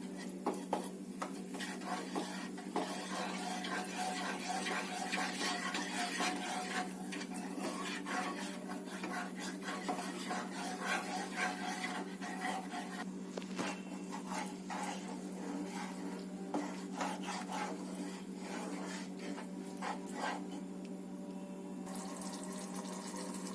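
A spoon stirring and scraping a thick curd-and-sauce gravy in a pan on the stove, with small repeated clicks against the pan and a wet, bubbling texture, over a steady low hum.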